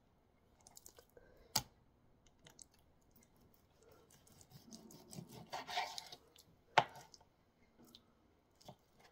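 Chef's knife slicing raw chicken breast into strips on a plastic cutting board, with a few sharp taps of the blade on the board. The loudest tap comes about two-thirds of the way through, just after a short scraping run.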